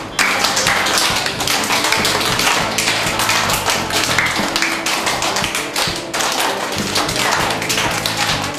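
Music with a fast, dense tapping percussion over steady held tones.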